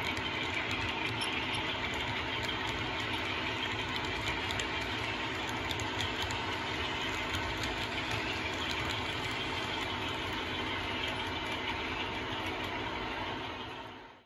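DCC sound decoder in an OO gauge model of a Class 33 diesel locomotive, playing its Sulzer engine running steadily as the loco pulls its train away from a station stop, heard through the model's small onboard speaker. The sound fades out near the end.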